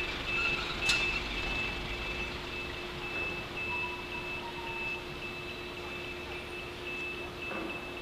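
A truck's reverse-warning beeper sounding in a steady string of high beeps, over a low steady hum of street traffic. A single sharp knock about a second in.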